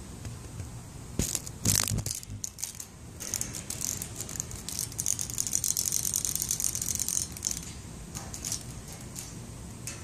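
Cicada's rattling buzz: a few sharp bursts about a second in, then a dense high-pitched rattle that runs for about four seconds and fades.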